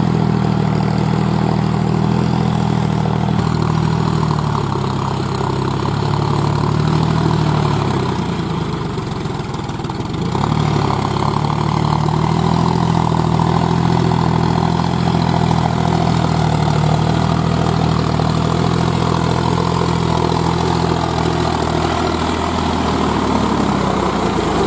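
Tractor engine sound idling steadily, fading briefly about eight to ten seconds in before coming back at the same pitch.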